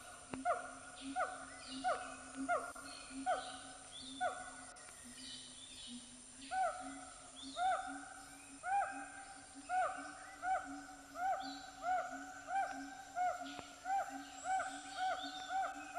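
Animal calls: a short hooting note repeated over and over, about one and a half times a second. It pauses about five seconds in, then resumes a little faster over a steady lower pulsing call and a thin high hiss.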